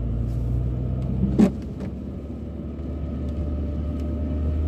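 Car driving on a wet road, heard from inside the cabin: a steady low engine and tyre drone, with one brief sharp knock about a second and a half in.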